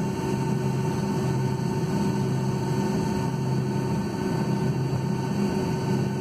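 Steady cabin noise of a Boeing 757-200 taxiing, heard from inside over the wing: an even engine rush with a low hum and a few steady tones.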